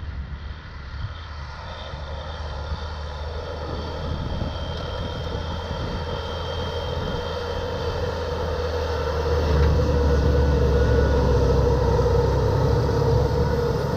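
Fendt 930 tractor engine running steadily under load while pulling a Väderstad Spirit 600C seed drill through the field, a deep steady hum that grows louder as it approaches and is loudest from about two thirds of the way in as it passes close.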